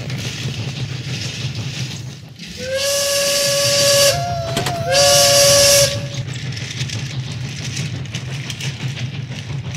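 Steam train whistle blown twice with a loud hiss of steam, each blast about a second and a half long, a short wavering tone linking them, over a steady low whir.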